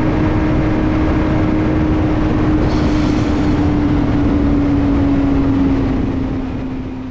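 Kawasaki Z750 inline-four motorcycle engine and rushing wind heard from a helmet-mounted GoPro while riding at a steady pace; the engine note sinks slightly as the bike eases off, and the sound fades out near the end.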